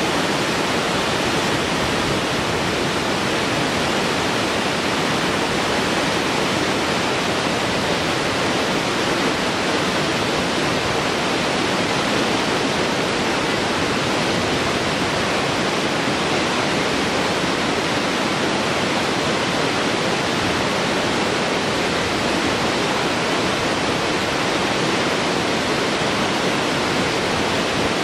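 Waterfall cascading over rock steps: a steady, loud rush of falling water with no change throughout.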